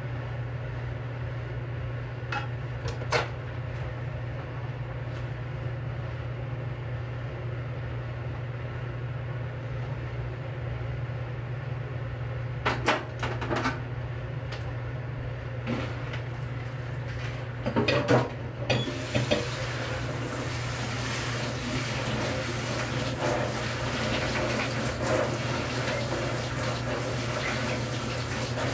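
An aluminium pan knocking and clattering a few times as it is handled and lifted off a gas stove, then, from about 19 seconds in, water running steadily into a sink. A steady low hum lies underneath throughout.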